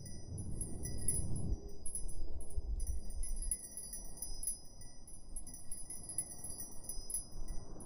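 Chimes: several high, shimmering tones that ring steadily throughout, over a low rumble that is strongest in the first half and then fades down.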